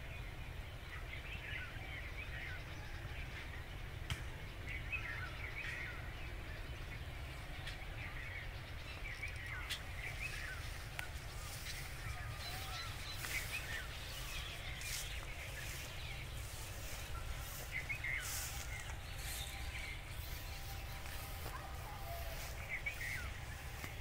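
Bulbuls calling: short chirps and warbled phrases every second or so over a low steady rumble. From about ten seconds in, sharp high ticks come in among the calls.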